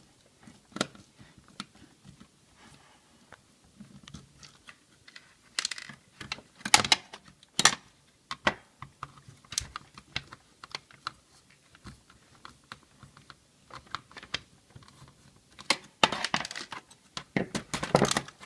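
Irregular clicks, taps and clatter of plastic and metal radio parts being handled and taken apart, with a busier run of clattering near the end.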